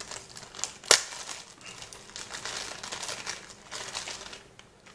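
Crinkling bag packaging being handled as a small handheld audio recorder is pulled out of it, with a sharp click about a second in.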